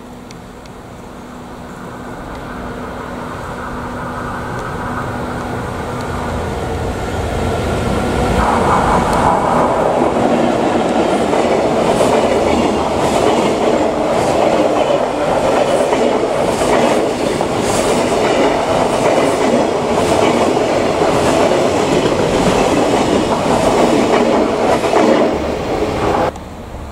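EF64 1000-series electric locomotive hauling a freight train, growing louder as it approaches. About eight seconds in, the long train of container flatcars passes close by, its wheels clattering rhythmically over the rail joints. The sound cuts off suddenly near the end.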